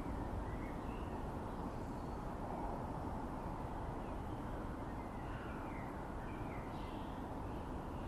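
Outdoor ambience: a steady low wind rumble on a microphone fitted with a windshield, with a few faint bird chirps.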